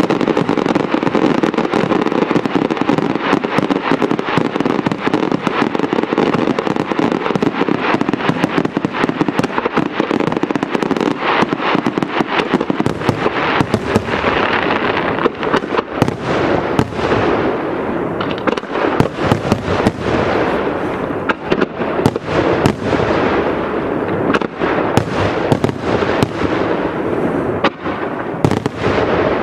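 An aerial fireworks display firing as a dense, continuous barrage: many shell bursts on top of each other, with a constant crackle. From about halfway through, single sharp bangs stand out more clearly.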